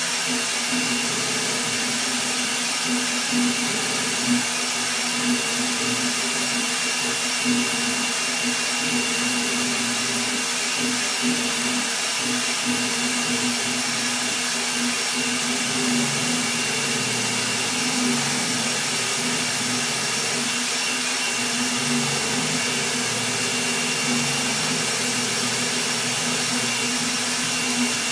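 Rat Rig V-Core 3 3D printer running a high-speed print at very high acceleration: a steady whir of its cooling fans over a hum from the motion system that pulses and shifts as the toolhead darts back and forth.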